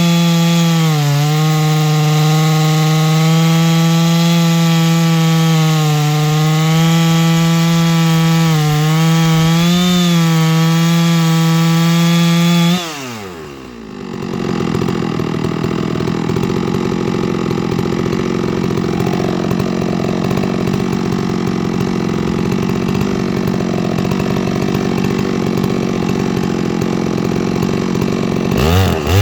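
Two-stroke chainsaw on a chainsaw mill ripping through a large black oak log at full throttle, its pitch sagging slightly under load now and then. About halfway through the saw drops to a rough idle, and just before the end it revs back up to full speed.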